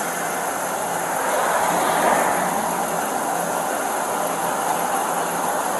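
Steady roadside vehicle noise with no distinct events, swelling slightly about a second and a half in and easing again after about two and a half seconds.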